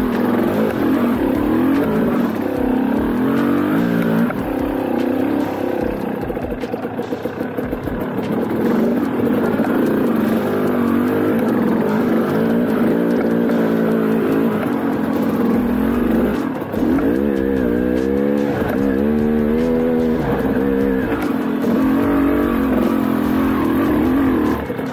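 Dirt bike engine running under varying throttle, its pitch rising and falling over and over as the rider rolls on and off the gas. There is a run of quick upward revs a little past the middle.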